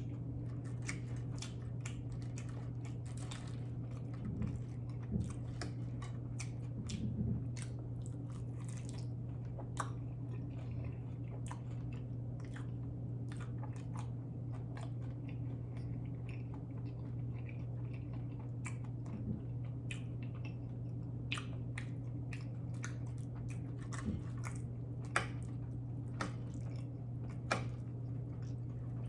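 A person chewing and biting food close to the microphone, with many short wet mouth clicks and smacks, over a steady low hum.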